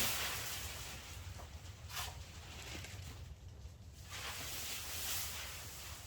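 Gusty wind with rustling, coming in swells every couple of seconds over a steady low rumble.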